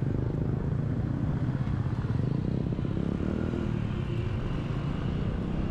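Street traffic, mostly motorbikes, heard from a moving bicycle, with a steady low rumble of wind on the microphone.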